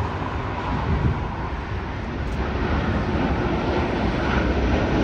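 Boeing 787 Dreamliner's twin turbofan engines at takeoff thrust as it lifts off the runway: a steady jet roar, heavy in the low end, growing gradually louder.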